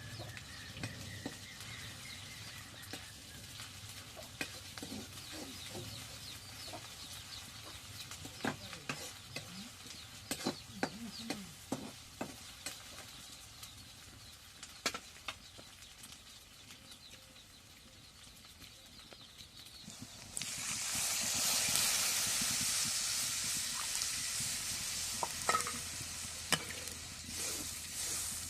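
Scattered clicks and knocks of utensils, then about twenty seconds in a sudden loud sizzle as food goes into hot oil in a cooking pot, easing off gradually as it fries.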